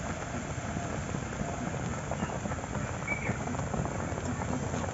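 Sweetened amra (hog plum) chutney boiling hard in a pan: thick foamy sugar syrup bubbling and popping steadily.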